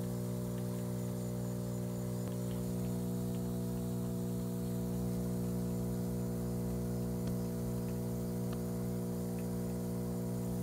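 Steady low electric hum with an even pitch, with a few faint ticks scattered through it.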